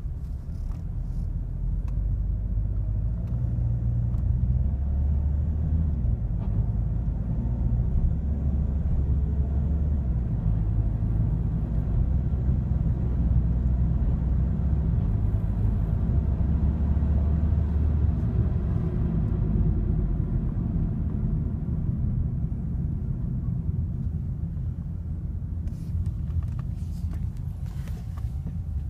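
Ford MK3 TDCi diesel car running under way, its low engine rumble stepping up and down in pitch several times as it changes gear. The sound is offered as evidence of an abnormal noise and a jerk during gear shifts.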